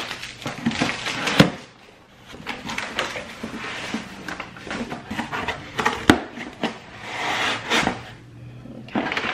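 Cardboard box being unpacked: crumpled packing paper rustling and cardboard flaps being handled, with a couple of sharp knocks, one about a second and a half in and another about six seconds in.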